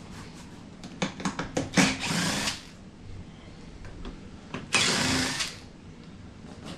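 Power drill/driver spinning in two short runs, one about two seconds in and one about five seconds in, each under a second, removing fasteners from a car seat. A few sharp clicks come just before the first run.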